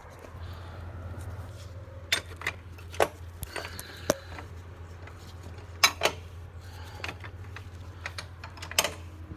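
Metal hand tools clinking and knocking against the motorcycle's clutch parts: scattered sharp metallic clicks, about seven in all, over a steady low hum.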